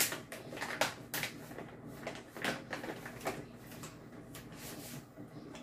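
Coffee beans being spooned out of a plastic bag: the bag rustles and the beans click against the spoon, in a string of irregular sharp clicks.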